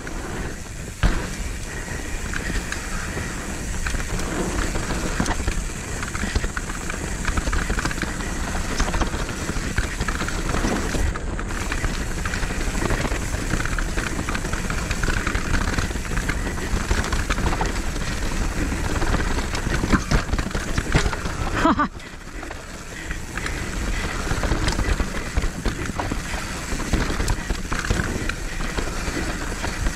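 Mountain bike descending a rough dirt trail: a steady rush and rumble of riding with constant clattering rattles from the bike over the ground, and a brief sudden drop in loudness about two-thirds of the way through.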